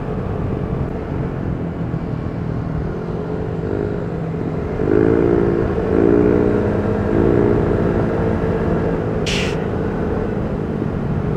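Vespa Primavera 150 scooter's single-cylinder four-stroke engine running at road speed, with wind rumble on the microphone. From about halfway it gets louder and its pitch rises and falls a few times. A brief hiss comes near the end.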